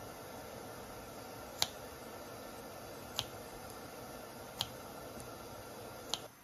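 Kitchen scissors snipping through raw chicken wings around the bone: four sharp snips about a second and a half apart, over a steady low hiss.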